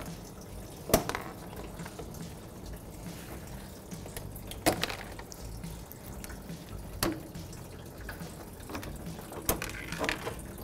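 Engine coolant trickling and dripping from the radiator drain petcock into a catch bucket, a faint steady sound, with a few sharp clicks scattered through.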